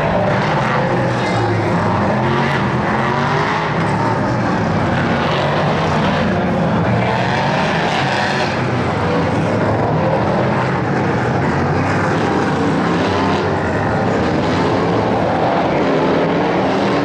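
Field of sports-prototype race cars running at racing speed, several engines overlapping, their pitch rising and falling as they accelerate, shift and pass.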